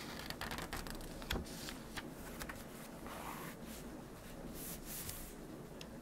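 Paper pages of a notebook being riffled and turned by hand, a run of short rustles and soft ticks, over a steady hiss of rain.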